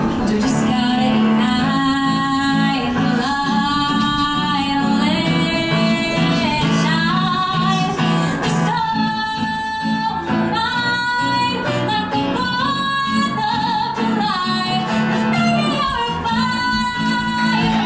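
A woman singing a pop song solo into a microphone with live piano accompaniment, holding long notes.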